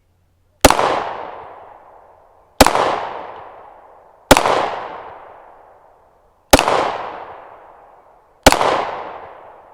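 Pistol fired slowly at a target: five single shots roughly two seconds apart, each a sharp crack followed by a long echo that dies away.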